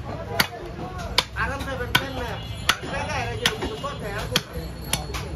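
Butcher's cleaver chopping beef on a round wooden block: seven sharp chops at a steady pace, about one every three-quarters of a second. Voices talk in the background.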